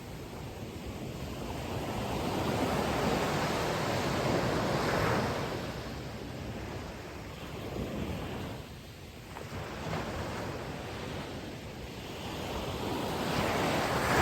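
Ocean waves breaking on the shore, the surf swelling and ebbing in long surges, louder in the first half and again near the end.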